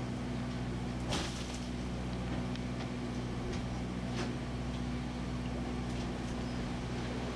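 Steady low drone of a fishing boat's engine running at a constant speed, with a single sharp knock about a second in.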